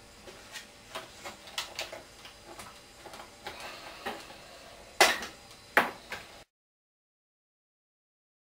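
Clicks and knocks of an airsoft M249's stock and parts being handled and worked, then two loud knocks about five and six seconds in, after which the sound cuts off suddenly.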